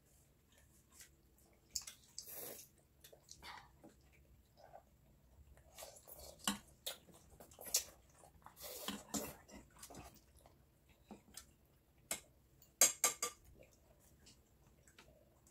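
Eating at a table: metal spoons and chopsticks clinking and scraping against bowls and a pan, with scattered chewing and noodle-slurping sounds. A quick run of sharp clinks comes near the end, the loudest moment.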